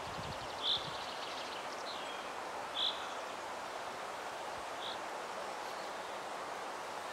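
Woodland ambience: a steady rustle of wind in the trees, with a small bird giving short, high single chirps, four in the first five seconds.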